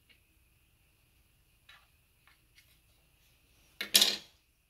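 The black plastic parts of a gel blaster rifle being pulled apart by hand: a few faint clicks, then one brief, louder clatter about four seconds in.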